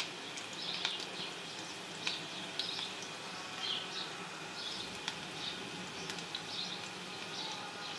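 Chopped garlic and green chillies frying gently in hot ghee for a tadka: a soft, uneven sizzle with a few sharp pops scattered through it.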